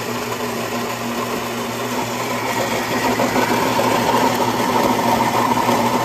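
Philips 3200 Series espresso machine's built-in coffee grinder grinding beans, a steady mechanical whir over a low hum, growing a little stronger in its later part: the grind for the second shot of a double espresso.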